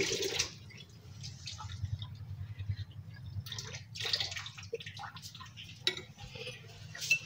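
Spoon scraping and clinking in a glass bowl of diced salad as the salad is scooped into a pita pocket: a few short scrapes and sharp clicks over a faint low steady hum.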